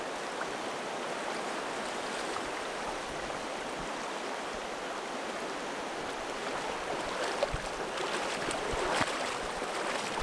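Fast river water rushing over a rocky riffle, a steady hiss, with a couple of brief knocks about two-thirds of the way through.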